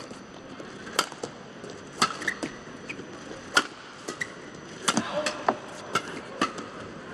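Badminton rally: rackets striking the shuttlecock in sharp cracks about once a second, one player's shot answering the other's, over the steady hum of an indoor arena. Brief squeaks of court shoes come between the hits.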